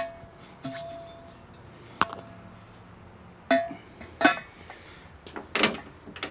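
Steel crane parts clanking together as the mast is fitted onto its flanged pivot post: about seven sharp metal knocks and clinks, several of them ringing briefly.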